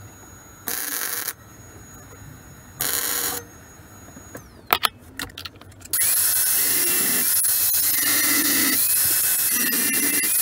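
Two short bursts of MIG welding on stainless steel plate, each a hiss lasting about half a second, then a few clicks and knocks as tools are handled. About six seconds in, an angle grinder starts and runs with a loud steady high whine, its pitch dipping now and then as it bears on the steel.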